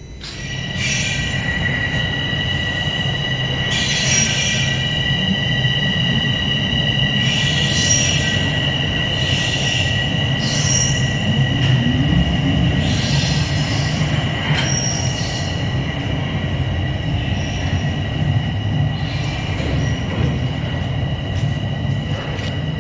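Toronto Rocket subway train moving through the station, its wheels squealing on the rails over a low rumble. Two steady high squeal tones run throughout, with sharper squeals coming and going on top. The sound swells about half a second in.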